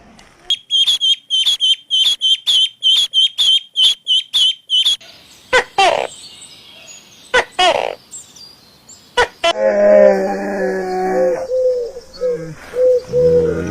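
A bird chirping rapidly, about three high chirps a second, for the first few seconds. Then come a few separate louder calls that slide down in pitch, and a longer, wavering pitched animal call near the end.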